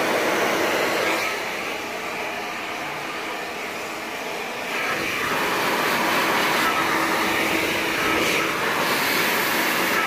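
Hand-held hair dryer running steadily, blowing air over hair pulled taut on a round brush. It drops a little in loudness for a few seconds, then comes back up about halfway through.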